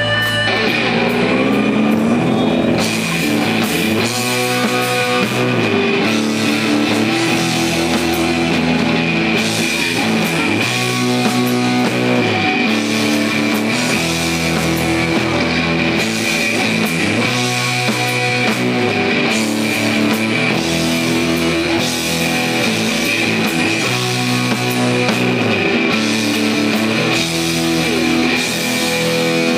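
Live rock band playing loud: electric guitars, bass guitar and drum kit, with a riff repeating about every two seconds.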